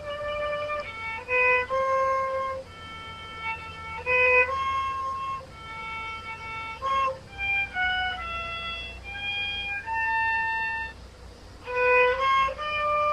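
Background music: a solo violin playing a slow melody of held notes, one note at a time.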